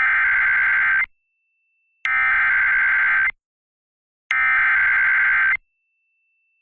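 Emergency Alert System SAME header: three identical bursts of warbling two-tone digital data, each a little over a second long with about a second of silence between them. The code opens the alert and carries the event type, a National Weather Service severe thunderstorm warning, and the counties it covers.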